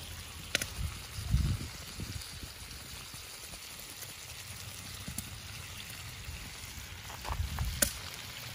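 Fish fillets and onions frying in butter in a pan over a wood fire, a steady soft sizzle, with a few sharp clicks and low bumps.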